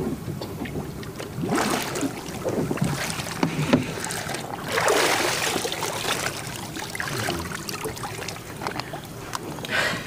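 Sea water splashing and sloshing against the side of a boat around a scuba diver at the surface, in uneven swells with a few small knocks.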